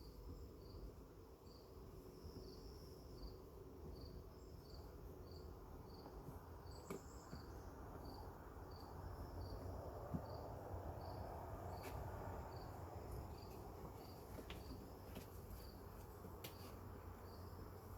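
A cricket chirping steadily, a little under two chirps a second, over the low hum of honeybees around an open hive, with a few light clicks.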